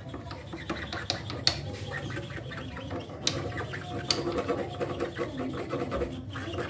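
Repeated scrubbing and scraping strokes on a perkutut (zebra dove) cage as it is cleaned, with a few sharper clicks about one and a half, three and four seconds in.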